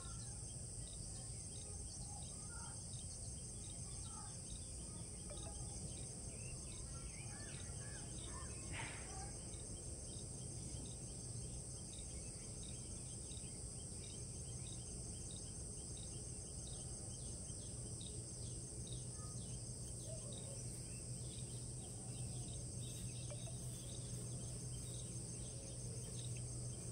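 Outdoor ambience: a steady high-pitched insect drone, with many short bird chirps scattered through it and a steady low hum underneath.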